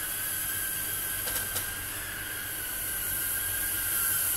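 Micro FPV tiny-whoop drone with tri-blade propellers flying, its small motors and props giving a steady high whine that wavers slightly in pitch. Two faint ticks about a second and a half in.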